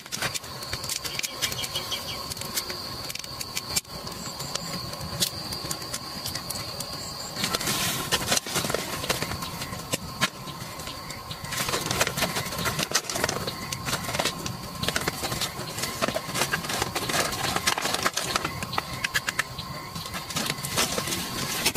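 Many small clicks and knocks of cut cassava roots being handled and stacked on a bamboo rack, over a steady high-pitched tone that drops out for a few seconds in the middle.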